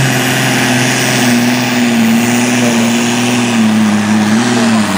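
Competition pulling tractor's diesel engine running flat out under full load as it drags the weight sled down the track, a loud steady engine note that sags slightly in the middle and falls away right at the end.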